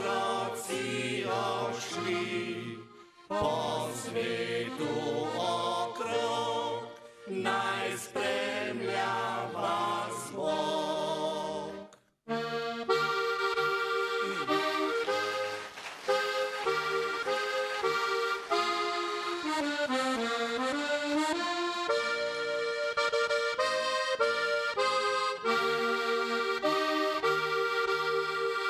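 Male voices sing a Slovenian folk song in harmony and break off about twelve seconds in. A Herceg diatonic button accordion then plays alone, a melody over sustained chords.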